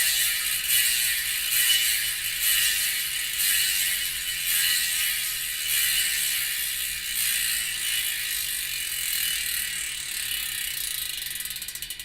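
Bicycle rear hub freewheeling: the pawls and ratchet ring click so fast they make a continuous high buzz, which slows into separate clicks near the end as the wheel spins down.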